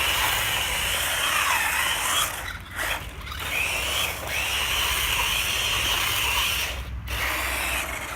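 A small electric motor whining at high pitch over a hiss. The whine dips in pitch and comes back about a second and a half in, and the sound breaks off briefly several times.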